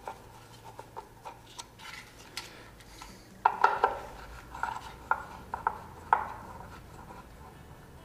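Needle-nose pliers clicking and scraping on a bolt in the metal yoke of a ceiling fan motor as it is loosened. A scatter of small metallic clicks, busiest from about three and a half to six seconds in.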